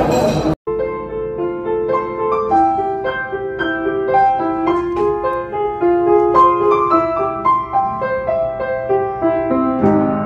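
Solo piano music, a melody of separate notes over held lower notes, coming in about half a second in right after a brief snatch of café chatter is cut off.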